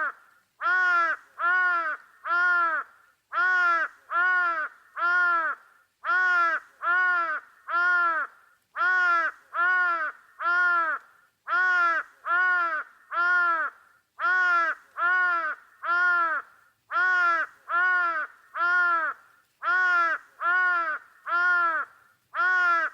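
Crow cawing in evenly spaced sets of three harsh caws, the sets repeating over and over at a steady pace.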